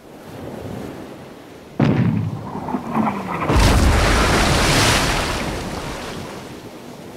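Cannon sound effects over a sea-and-wind backdrop. A sudden cannon boom comes about two seconds in, and about two seconds later a longer, heavier blast with a splashing hiss swells and slowly fades, matching a cannonball striking the water.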